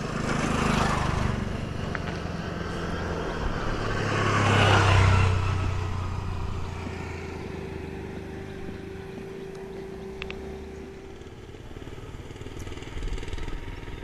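Motor vehicles passing close by: one about a second in and a louder one around five seconds in, each rising and fading away, followed by a quieter steady engine hum.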